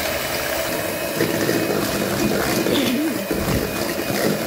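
Electric hand mixer running steadily at high speed, its beaters whipping eggs and sugar in a stainless steel bowl toward the high-peak stage for a sponge cake batter.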